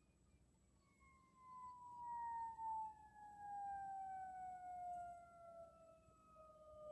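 Faint emergency vehicle siren winding down, its pitch falling slowly and steadily from about a second in.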